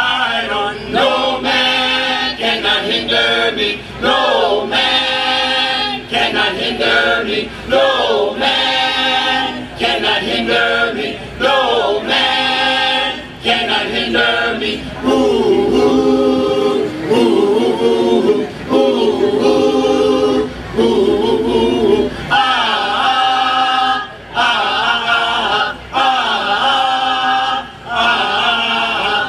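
Gospel choir singing a cappella in harmony, men's and women's voices together, in phrases with brief breaths between them.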